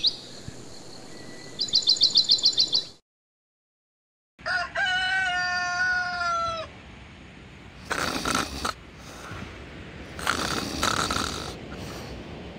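A rapid run of high, falling chirps, about nine a second, from a bird at night. Then a rooster crows once, a long call of a little over two seconds, followed by two short bursts of rustling.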